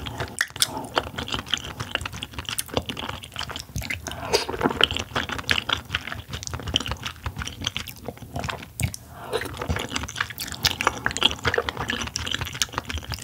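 Close-up wet chewing of steamed oyster meat in a creamy sauce: a dense run of small, squishy mouth clicks.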